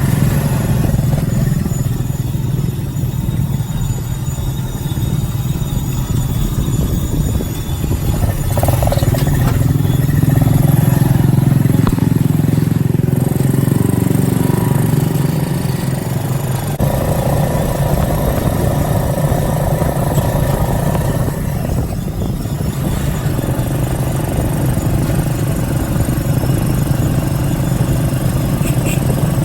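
Motorbike engine running during a ride; its pitch rises and then falls back about halfway through.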